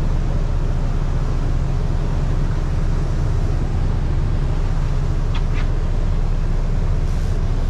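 Steady low rumble of the yacht's twin engines idling, with water churning along the hull. A couple of brief squeaks come about five seconds in.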